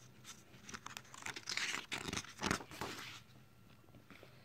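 Paper page of a hardcover picture book being turned by hand: a run of rustles and crinkles lasting about two and a half seconds in the middle.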